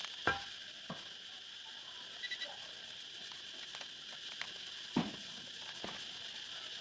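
A few light clicks and knocks, as of small parts and tools being handled, over a steady high hiss: two near the start, a quick triple tick about two seconds in, and two more around five to six seconds.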